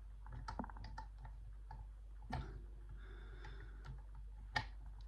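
Small clicks and ticks of a disc detainer pick turning the discs inside a K.S. disc detainer padlock, coming at irregular intervals, with a sharper click about halfway through and the loudest one near the end.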